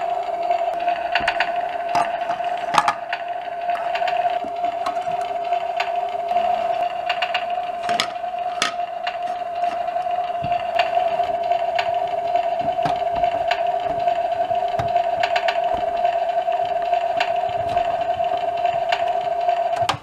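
Toy barbecue grill's electronic sizzling sound effect from its small speaker: a steady buzzy tone under a crackly hiss, which cuts off suddenly at the end when the grill is switched off. A few sharp plastic clicks sound over it.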